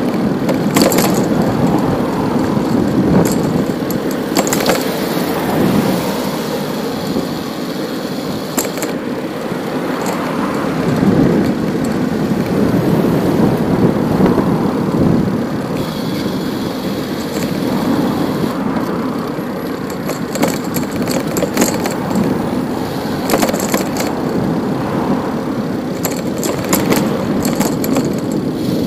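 Bicycle riding along a city street: steady road and wind noise with frequent sharp clicks and rattles from bumps, and motor traffic.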